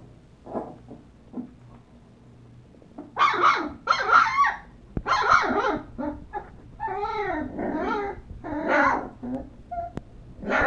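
Young puppies yipping and barking. Only faint little sounds come in the first few seconds. About three seconds in comes a loud run of sharp yaps, then drawn-out whines that rise and fall in pitch, and one more yip near the end.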